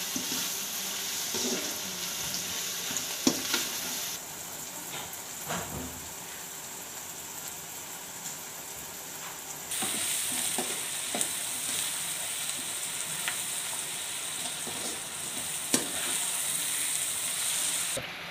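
Onion-tomato masala sizzling in oil in a metal kadai while a perforated metal spoon stirs it, scraping and clicking against the pan now and then, so that it does not stick to the bottom. The sizzle gets louder about ten seconds in.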